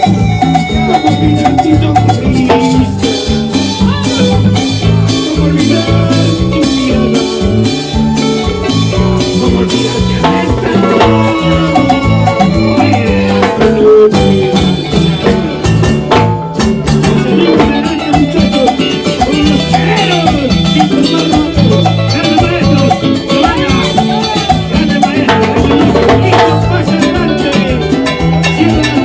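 A salsa band playing loud, dense music, with steady percussion under melodic lines. The band drops out for a moment about halfway through.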